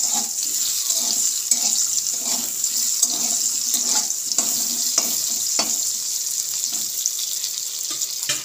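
Sliced raw mango frying in hot mustard oil in a metal kadai, with a steady sizzle throughout. For the first half a metal spatula stirs and scrapes the slices about twice a second. About halfway through it taps the pan three times sharply, and then the sizzle goes on alone.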